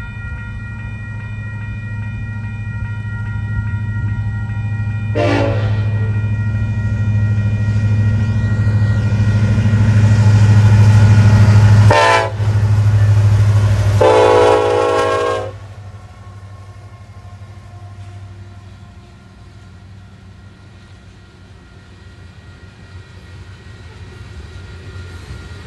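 Union Pacific diesel freight locomotive sounding its air horn as it approaches and passes: a long held horn chord, then three louder short blasts, the last held about a second and a half. A deep engine rumble swells as the locomotive goes by, then drops away to the quieter rolling rumble of freight cars passing.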